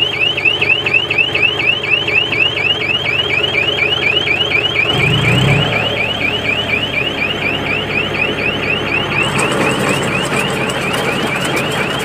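Mini round baler's bale-full alarm: an electronic warbling chirp repeating about four times a second, over the tractor engine and baler running. It signals that the bale chamber is full and the twine is being wrapped around the bale.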